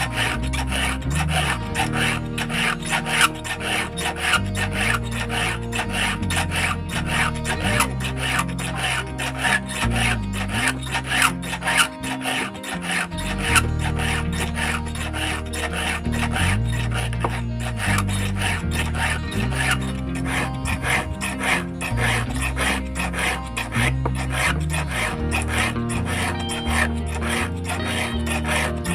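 Hand file rasping across the cutters of a chainsaw chain in quick repeated strokes, over background music.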